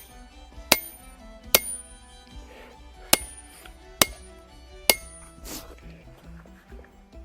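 Hand hammer striking steel at the anvil, five sharp ringing blows spaced roughly a second apart, driving a drift into the eye of a hot axe head.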